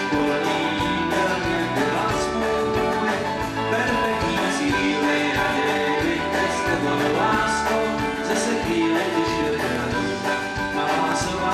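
Live rock band playing a song: electric guitars, bass guitar, mandolin and drum kit, with regular cymbal hits over a steady beat.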